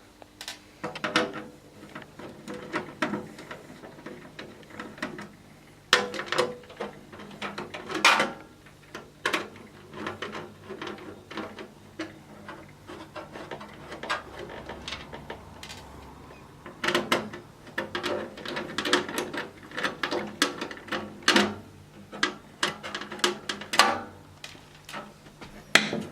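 Screwdriver backing out the screws that hold a solid state drive inside a desktop computer case, with irregular small metallic clicks and knocks from the screws, the driver and the case.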